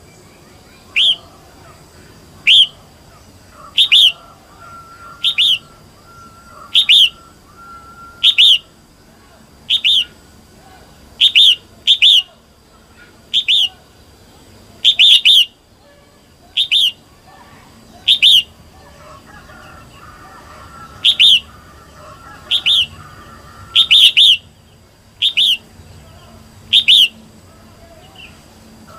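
Female red-whiskered bulbul calling: a short, sharp, loud note repeated about every one and a half seconds, now and then doubled, over fainter chirps behind. It is the kind of female call used to rouse male bulbuls.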